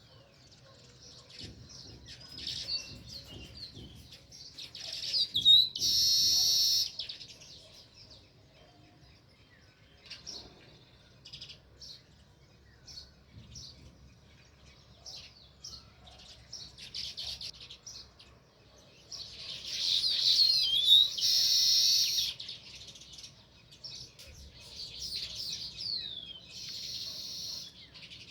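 House sparrows chirping in short, repeated chirps, breaking into two loud bouts of rapid chattering, one about five seconds in and another about two-thirds of the way through, and a shorter one near the end.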